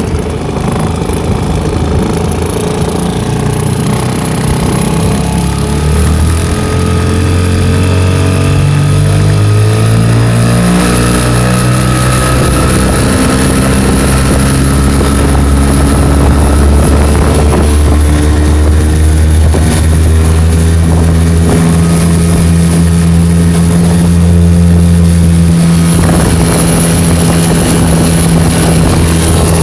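Tohatsu 5 hp two-stroke outboard motor running hard, rising in pitch over the first several seconds as it throttles up and then running steady at high revs. Under this load it gives a strong rattling buzz, an abnormal noise of unknown cause.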